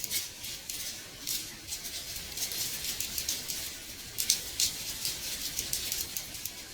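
Rain on a window pane: a steady high hiss with many irregular light taps of drops striking the glass.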